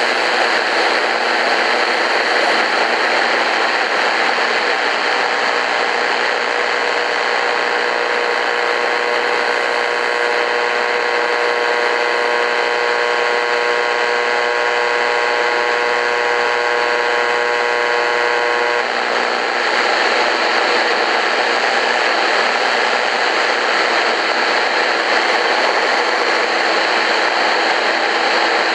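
Shortwave static from an Eton FR250 radio's speaker as it is tuned between stations: a steady, loud hiss with no voice in it. About five seconds in a steady whine of several pitches joins the hiss, and it cuts off suddenly about two-thirds of the way through.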